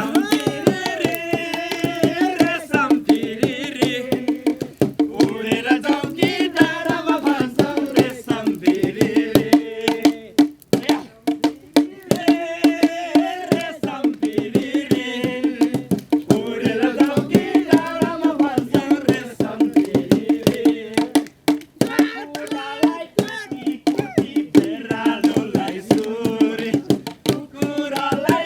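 A folk song sung to a hand drum, with sung phrases over a quick, continuous drum beat.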